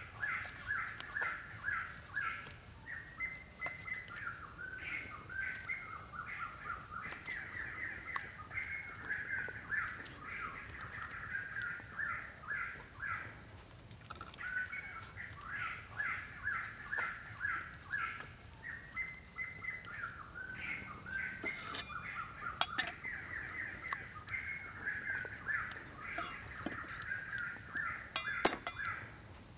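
Birds calling in rapid, repeated short notes over a steady high-pitched whine from the surroundings. Near the end there are a few sharp chops of a cleaver on a wooden block.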